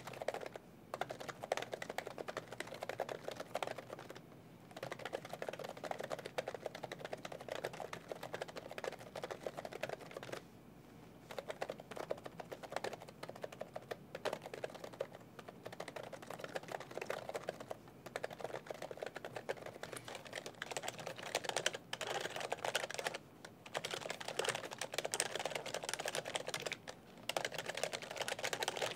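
Continuous typing on a Skydigital NKEY 8K membrane keyboard, broken by a few short pauses. For the first twenty seconds the keys are covered by a clear silicone keyskin, and the keystrokes are soft and low on key noise. After that the skin is off and the keystrokes sound sharper, with more high clatter.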